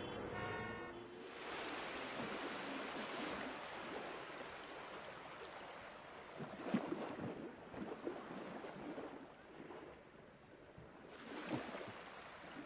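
A rushing noise that swells twice, with scattered soft low knocks in the middle and near the end, and a brief pitched tone in the first second.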